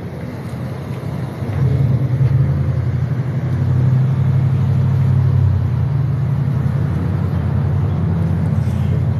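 A motor vehicle's engine running, a low rumble that gets louder about a second and a half in and then holds steady.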